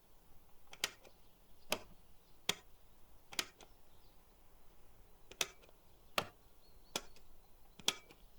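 Sharp mechanical clicks from the controls of a reel-to-reel tape recorder, eight of them at uneven intervals, some with a small second click just after, against a faint hiss.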